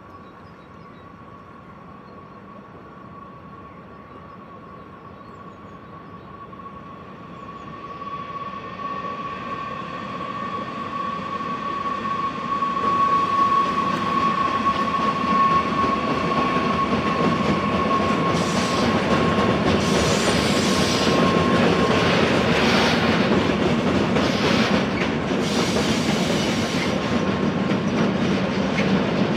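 A train approaching and running through railway points, growing louder over the first dozen seconds. A steady high wheel squeal builds and fades away about two-thirds through, and then the wheels clatter repeatedly over the switch and rail joints.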